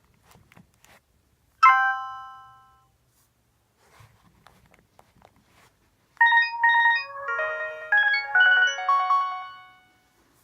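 Sony Ericsson K700i mobile phone playing its preset tones. A single bell-like chime rings out and fades over about a second. A few seconds later comes a short, quick melody of bright overlapping notes lasting about three and a half seconds.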